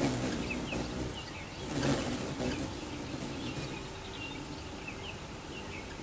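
Hummingbirds feeding and chasing: the buzzing hum of their wings, with many short, high chips scattered through it and a louder rush of wings about two seconds in.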